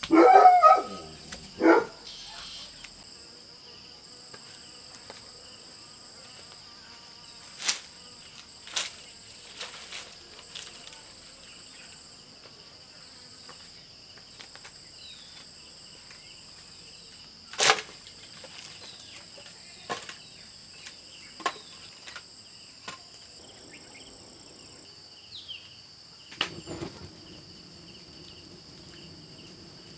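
A steady high-pitched drone of insects, with scattered sharp knocks of wood and tools being handled and a louder burst in the first two seconds. Near the end a low rushing noise comes in, matching the wood fire that is now burning.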